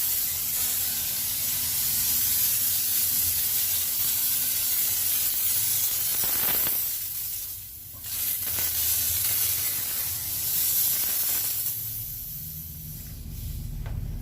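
A steady hiss, mostly high-pitched, with a low hum beneath; it drops away briefly about seven seconds in and again near the end.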